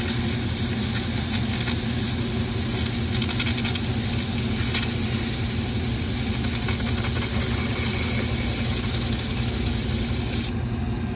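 Metal lathe running steadily, spinning a rusty rear-end pinion yoke while 400-grit sandpaper rubs against its seal surface to clean it up for a new pinion seal. The rubbing hiss drops away near the end.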